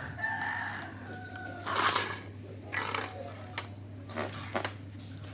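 A rooster crowing, one held call that falls slightly in pitch, with a short, loud rustling scrape about two seconds in.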